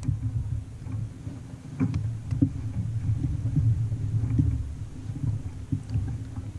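Uneven low rumble and scattered knocks as someone moves around in a kayak, the bumps carried through the hull, while a landed trout is handled in a landing net.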